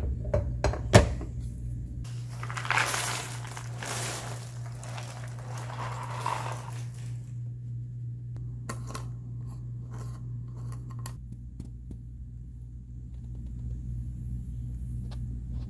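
A few sharp knocks as the glass carafe is set back into a Ninja coffee maker. About two seconds in, a rustling clatter of jigsaw puzzle pieces being poured out of their box onto a wooden table runs for several seconds, then a scatter of light clicks. A steady low hum sits underneath.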